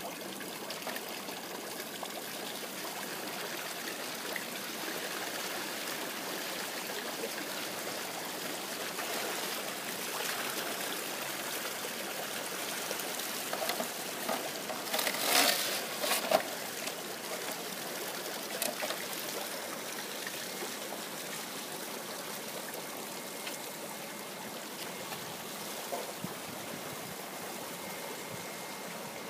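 Water trickling and running steadily through an aquaponics system's tanks and pipes, with a brief louder burst of noise about halfway through.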